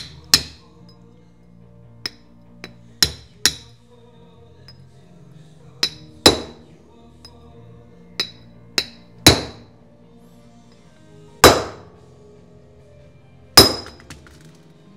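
Hammer blows on steel parts: about a dozen sharp, irregularly spaced strikes, some light and some hard, each with a brief metallic ring.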